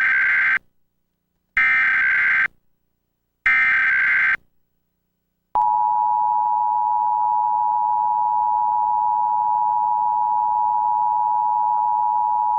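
Emergency Alert System SAME header data tones sent three times as short buzzy bursts of about a second each. Then, about halfway in, the steady two-tone EAS attention signal (853 and 960 Hz) starts.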